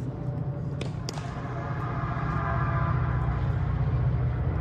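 Two sharp tennis-ball knocks about a second in, a quarter second apart, over a steady low rumble, with faint distant voices in the middle.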